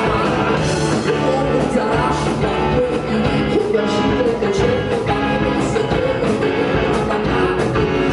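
A rock band playing live and loud: two electric guitars over a drum kit keeping a steady beat.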